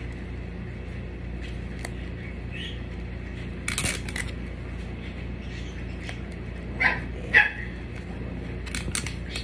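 A dog barks twice in quick succession about seven seconds in, the second bark louder, over a steady low hum. A short rustle of handling comes about four seconds in.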